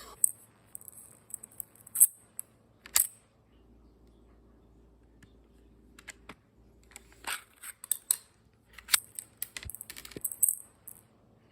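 A run of sharp, irregular clicks and snaps from a 3D-printed pistol being handled and its mechanism worked. A few loud single clicks come first, then a pause, then a quicker cluster of clicks near the end.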